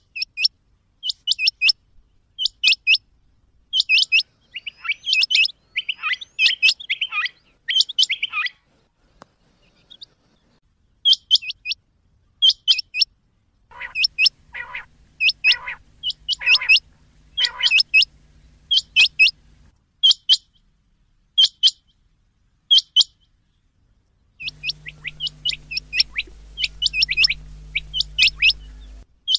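Rain quail calling: short, sharp, high notes given in quick pairs and triples, repeated about once a second. About halfway through comes a lower, rougher series of five notes. Near the end a steady hum and hiss run under the calls for a few seconds.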